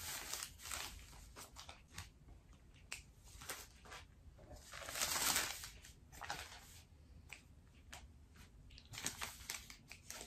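Scissors snipping threads and fabric strips rustling as chain-sewn string pieces are clipped apart and handled, in short scattered sounds with a louder rustle about five seconds in.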